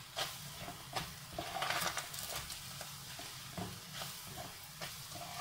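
Metal ladle stirring minced meat and onion in a stainless steel pot, scraping and clicking irregularly against the pot, with the meat sizzling lightly as it fries.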